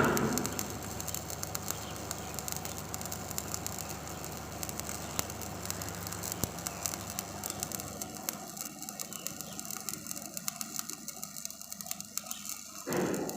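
Electric arc welding: a steady crackle and hiss with dense fine crackling. After about eight seconds it thins out, and a short louder noise comes near the end.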